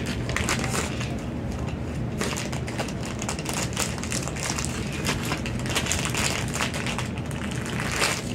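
Plastic packaging crinkling and rustling as it is handled and opened, a steady run of small crackles.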